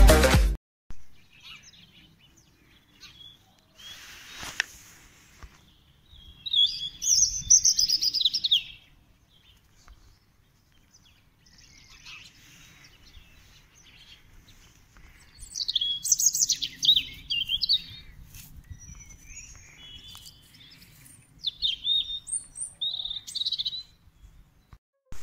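European robin singing: three spells of quick, high, warbling phrases with quiet pauses between them.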